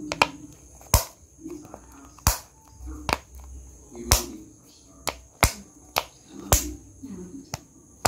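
Homemade pop-it fidget toy: a finger presses plastic domes cut from a plastic bottle, each giving a sharp click-pop, about seven in all, roughly one a second at an uneven pace.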